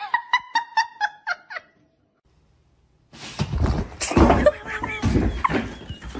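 A woman's quick, high-pitched laughter, about eight short 'ha' pulses in a row, stops abruptly. After a short silence comes a jumble of knocks and rustling noise, with one sharp knock about four seconds in.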